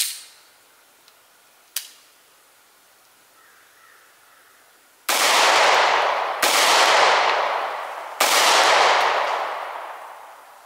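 Three slow, aimed 9mm pistol shots, about one and a half seconds apart, each trailing off slowly, preceded by two sharp clicks.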